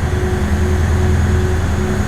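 Ferry boat's engine running steadily: an even, deep drone with a fainter hum above it.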